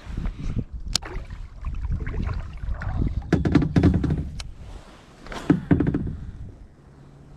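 Irregular knocks and thunks on a kayak hull as gear is handled, several in a quick cluster around the middle, over a steady low rumble.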